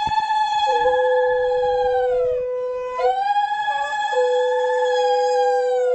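Conch shells (shankha) blown in long, steady blasts, two at once, one higher and one lower. The higher blast sags in pitch as it dies away about two and a half seconds in and is sounded again at about three seconds; the lower one holds a steady note beneath.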